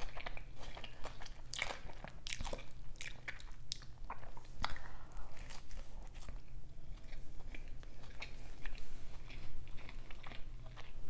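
Close-miked biting and chewing of a burger: irregular wet mouth clicks and soft crunches, with no talking.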